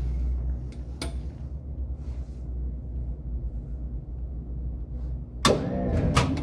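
Inside a Bucharest tram: a low steady rumble with a single click about a second in. Near the end comes a sudden loud bang and about a second of rattling, typical of the tram's doors slamming shut.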